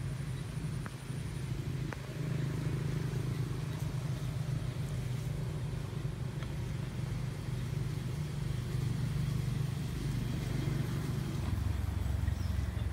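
A steady low engine rumble, like a motor vehicle running, which grows deeper and louder about eleven seconds in.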